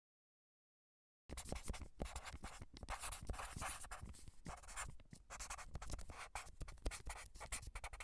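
Dead silence for about a second, then quick, irregular scratching and tapping, as of writing on a surface.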